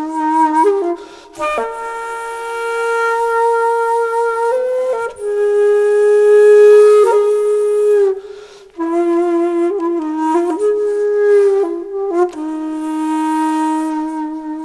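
Background music: a solo breathy flute playing a slow melody of long held notes, with short breaks between phrases.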